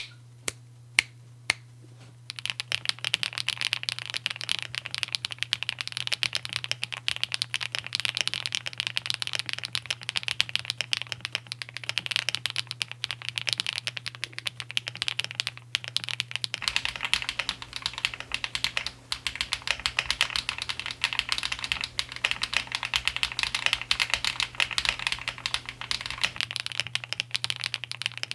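Mechanical keyboard with HMX Sunset Gleam switches in a KBDCraft Adam Lego-brick case: a few single keystrokes, then fast continuous typing from about two seconds in.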